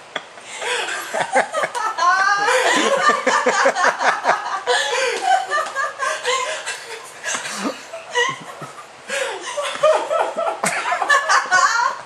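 Loud human laughter in repeated bursts, easing off briefly about eight seconds in before picking up again.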